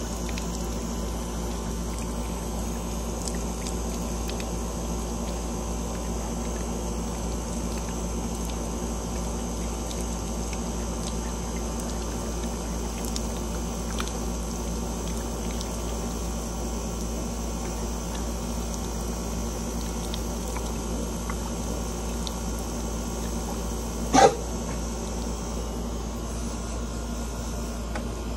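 Garden hose spray nozzle running steadily while a wet Deutsch Drahthaar puppy drinks and snaps at the spray. One short, loud sound near the end.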